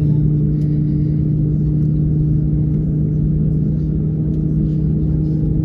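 Steady cabin hum inside an Airbus A321neo on the ground, its CFM LEAP-1A engines running at low power: an even low drone over a rumble, unchanging throughout.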